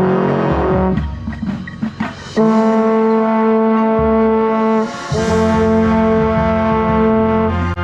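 Marching band brass, baritone horns among them, playing long held notes. One note ends about a second in; after a short break a new note is held for about two and a half seconds, then, after a brief break, another for about two and a half seconds more.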